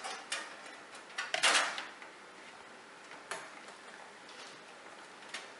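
Motherboard being worked into a computer case and against its I/O shield: short clicks and scrapes of metal and plastic. A longer scrape comes about one and a half seconds in, then single clicks near the middle and near the end.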